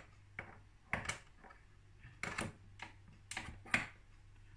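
Scattered light clicks and taps from a stand mixer being handled, its head, whisk attachment and stainless steel bowl, about seven irregular clicks over a faint steady low hum.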